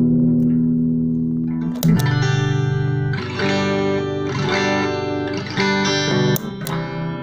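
Electric guitar played through a MAD BOX Black Master compressor pedal: a long sustained chord dies away, then a fresh strum about two seconds in starts several more ringing chords. Near the end the pedal's footswitch is pressed and the level drops.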